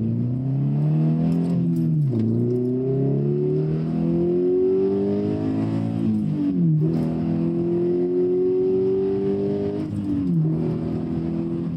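FR-S/BRZ/GT86 2.0-litre flat-four boxer engine, heard from inside the cabin, accelerating hard through the gears with its throttle controller in the sharpest Sport 9 mode. The engine note climbs, drops sharply at three upshifts about two, six and a half and ten seconds in, then settles to a steady pitch.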